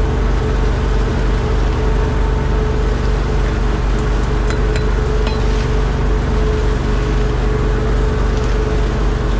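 A boat's engine running steadily, a low even drone with a constant hum. A few light clicks come near the middle.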